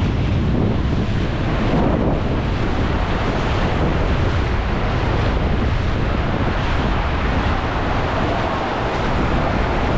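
Ocean surf breaking and washing in over shallow water on a sandy beach, a steady rushing noise. Wind buffets the microphone.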